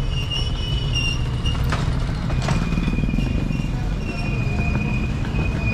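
City street traffic: a steady low rumble of passing cars and motorbikes, with a thin high tone held through much of it.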